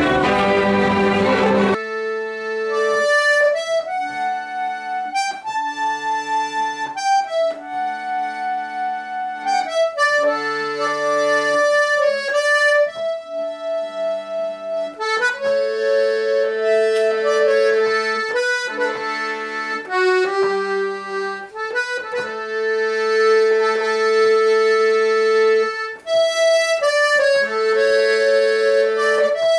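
A button accordion playing a slow Irish ballad air, a melody of long held notes over steady chords. It follows the last two seconds of a string ensemble of violins and cellos.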